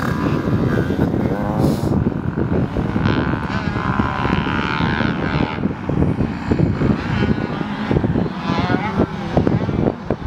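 Dirt bike engines running and revving, the pitch rising and falling.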